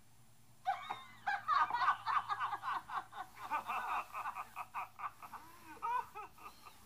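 Laughter: a run of quick chuckles starting under a second in, loudest early on and fading out near the end.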